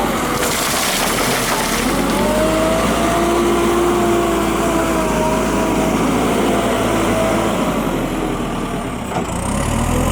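JCB 3CX backhoe loader's diesel engine running steadily while the machine works, with a whine that wavers slightly in pitch over the engine rumble.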